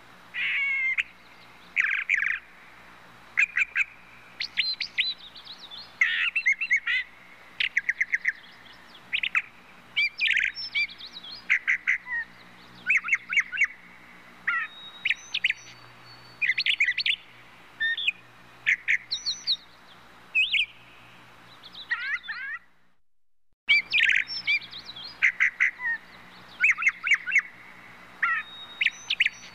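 Birds chirping and twittering: many short, high calls and trills in quick succession, with a brief break about 23 seconds in.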